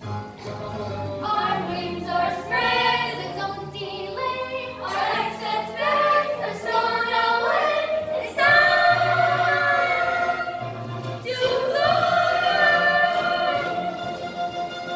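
A group of voices singing a musical-theatre number together with instrumental accompaniment. The sung notes are long and held, and the singing grows louder about halfway through.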